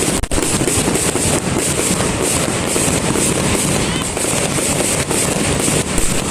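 Fireworks display going off in a dense, continuous barrage of bangs and crackling, with no pause.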